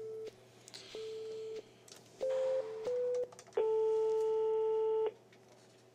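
Telephone line tones heard through the handset. First, two short busy-signal beeps as the line drops. Then two short beeps of a slightly different pitch, and one long ringing tone of about a second and a half as a new call is placed.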